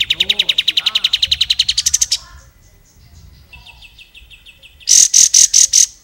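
Kapas tembak (olive-winged bulbul) singing: a loud, rapid trill of about two seconds that rises in pitch at its end. After a pause comes a fainter run of quick notes, then about six loud, high, sharp notes near the end.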